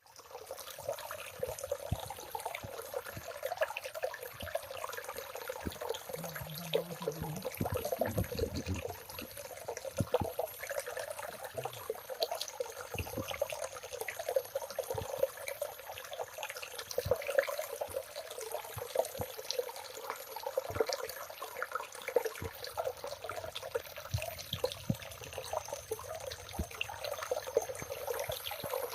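Water flowing in a small forest stream: a continuous trickling with many small splashes and drips.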